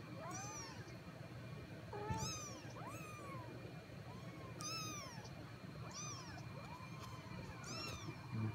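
Tabby kittens mewing over and over: short, high-pitched mews that rise and fall, about one or two a second. A brief low thump near the end.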